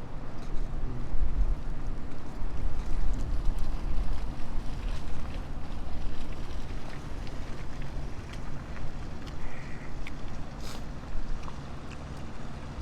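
Wind buffeting the microphone in a snowstorm: a loud, low rumble that rises and falls in gusts.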